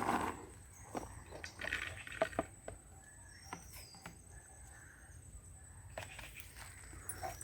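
Faint scattered taps and knocks, with a short bird chirp about three and a half seconds in.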